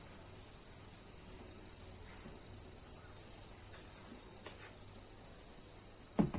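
Crickets chirping steadily in a continuous high-pitched chorus, with a couple of faint higher chirps midway. Two short sharp knocks sound near the end.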